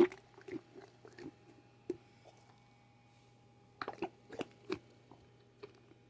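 Irregular crackling and clicking of a toy and its plastic packaging being handled close to the microphone, loudest right at the start and again in a cluster about four seconds in.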